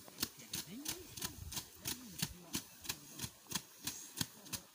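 Rice sheaves being beaten by hand to thresh out the grain: a steady run of sharp thwacks, about three a second, from several threshers working together.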